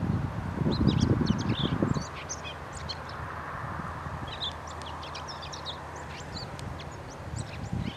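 Small birds chirping and calling from the marsh reeds, a scatter of short high notes, over a steady low hum. A louder low rumble fills about the first two seconds.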